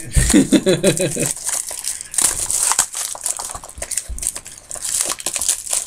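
Trading-card pack being opened and handled: crinkling, rustling and small clicks of the packaging and cards as they are pulled out. There is a brief wordless vocal sound in the first second or so.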